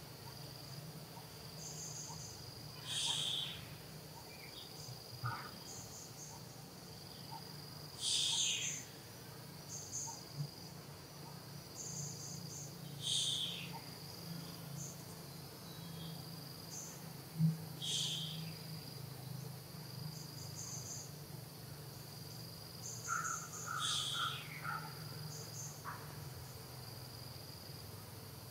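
Insects trilling, a steady high-pitched drone. On top of it comes a short, loud, high-pitched call about every five seconds, six in all, with faint scattered chirps in between.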